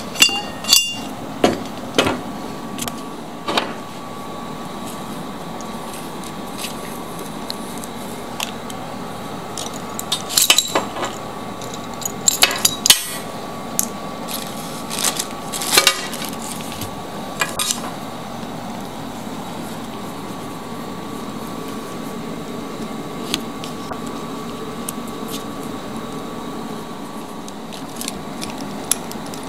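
Scattered metallic clinks and knocks of hand tools against the parts of a washing-machine motor being dismantled, in a few short clusters with quieter stretches between.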